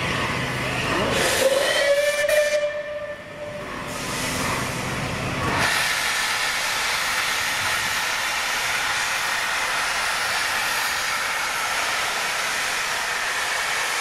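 Train whistle sounding once, about a second and a half in: a single tone that slides up briefly and then holds for about two seconds. A loud steady hiss starts abruptly about six seconds in.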